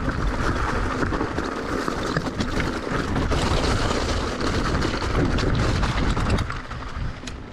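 Wind buffeting the camera microphone over the rattle and crunch of an electric mountain bike's tyres and frame on a stony trail, with many small knocks from loose stones. It eases a little near the end.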